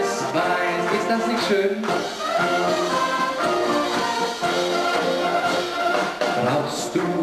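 Brass band playing a tune from a Bohemian polka and waltz medley.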